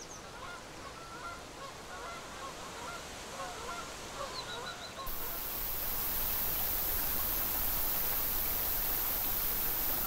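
Many short, distant animal calls over a quiet background. About five seconds in, these cut off abruptly and a louder, steady rush of flowing river water takes over.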